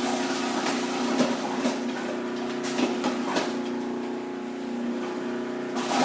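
Commercial food processor running with a steady motor hum while shredding cabbage pushed down its feed tube, with irregular crunches as the leaves are cut.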